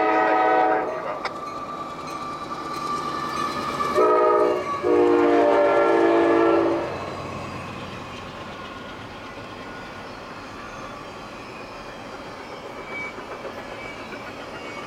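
CSX freight locomotive's air horn sounding for the grade crossing: a long blast ends about a second in, then a short blast about four seconds in and a longer one. After that the double-stack intermodal train rolls steadily past as its wheels run over the crossing.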